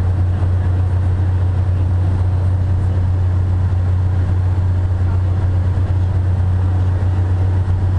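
Cessna T-41's 210-horsepower piston engine and constant-speed propeller, heard inside the cabin as a steady, unbroken low drone in cruise flight.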